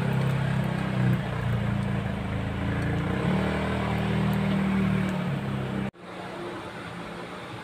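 A motor engine running nearby, its pitch shifting now and then, loud over oil sizzling as an eggplant omelette fries in a pan. About six seconds in, both cut off suddenly and a quieter, steady background remains.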